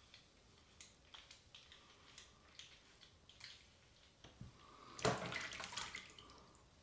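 Faint short scraping strokes of a HeadBlade S4 Moto razor over lathered stubble on the neck behind the ear. About five seconds in comes a second-long splash of water.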